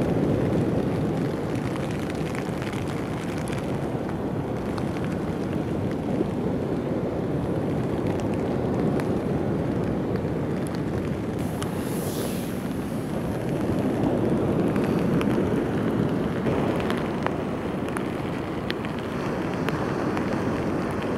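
Steady, loud rushing of wind buffeting the microphone, with a few faint ticks scattered through it.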